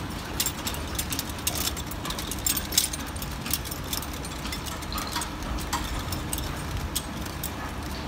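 Irregular metallic clicks and clanks of hand tools working on the fittings of a steel level-crossing alarm post, over a steady low engine hum. A brief cluster of sharper clanks comes about two and a half seconds in.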